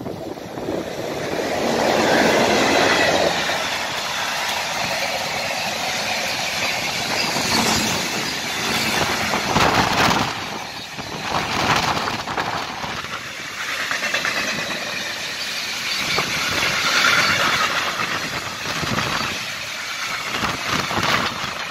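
Freight train passing close by: the locomotive goes by loudest about two to three seconds in, then a long string of loaded flat wagons rolls past with a steady rumble and rush of wheels on rail and occasional sharp clicks from the wheels.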